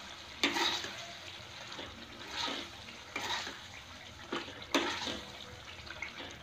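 Steel ladle stirring thick egg curry gravy in a steel kadhai: wet, bubbling sizzle of the simmering masala with a few sharp clinks and scrapes of the ladle against the pan.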